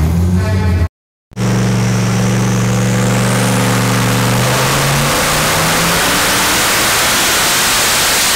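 Twin-turbo Ford Windsor stroker V8 running loud on a chassis dyno. After a brief silence about a second in, it holds a steady deep drone for a few seconds, then gives way to a harsher, noisier sound, with a faint high whistle rising over it.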